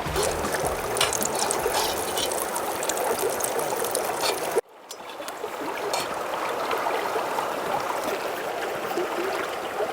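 Steak and garlic sizzling over a wood fire: a steady hiss with scattered crackling pops. It cuts out abruptly about halfway through, then resumes.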